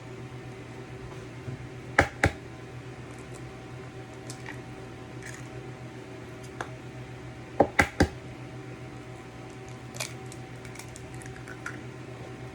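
Two brown eggs being cracked against a hard edge: two sharp taps about two seconds in, then a quick run of three past the middle and a single tap later. A steady low hum runs underneath.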